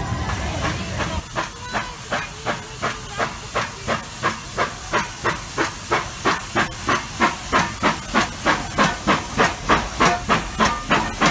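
Walt Disney World Railroad steam locomotive chuffing in a steady rhythm, its exhaust beats starting about a second in at roughly three a second, quickening slightly and growing louder as it comes past.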